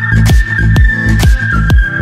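Electronic dance music with a steady kick-drum beat about twice a second and a held synth lead line over it.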